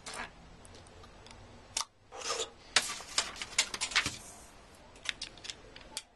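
Rapid, irregular sharp clicks and short scrapes very close to the microphone, thickest from about two to four seconds in, with a few more just before the end.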